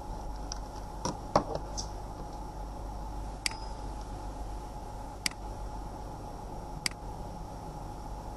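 Computer mouse clicking: a quick cluster of sharp clicks and a knock just over a second in, then single clicks about a second and a half to two seconds apart, over a steady electrical hum with a faint whine.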